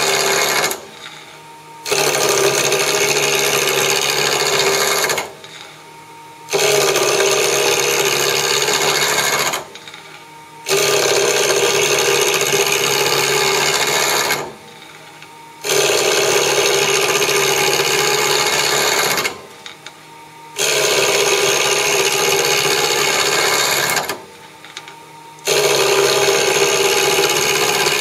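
A 3/4-inch spindle gouge cutting a spinning Douglas fir blank on a mini-lathe, roughing it down to a cylinder. The cut is a loud scraping noise that comes in about six passes of three to four seconds each. In the short breaks between passes only the lathe is heard running.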